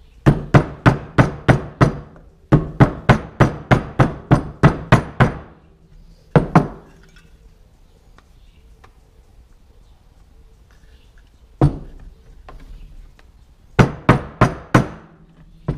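Hammer blows driving an RPK lower handguard retainer onto an AK-pattern barrel: quick runs of sharp metallic strikes about three to four a second, a run of about six, then about ten, a few single blows, and a last run of about five near the end.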